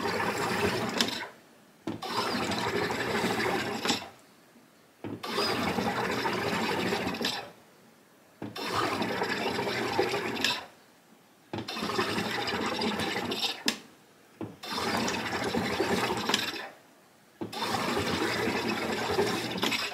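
SodaStream Spirit soda maker carbonating a bottle: the top is pressed seven times, each press sending about two seconds of CO2 hissing and bubbling into the water, with a short pause between presses.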